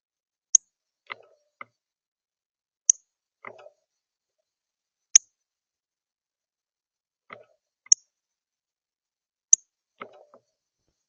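Northern cardinal giving five sharp, high chip notes a couple of seconds apart, with softer low knocks and rustles after several of them.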